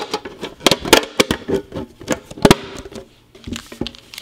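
Handling clatter: a quick run of sharp knocks and clicks as a metal Pokémon card tin and its contents are moved about, with a louder knock about two and a half seconds in, then only faint ticks.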